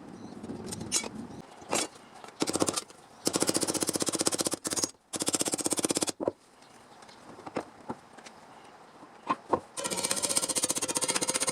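A fast-pulsing power tool, run in several bursts of about a second each, with a few single clicks between them, then running steadily for the last couple of seconds.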